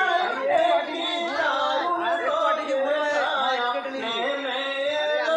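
A man's voice singing a Bengali marsiya, a Muharram elegy, in long, wavering held notes.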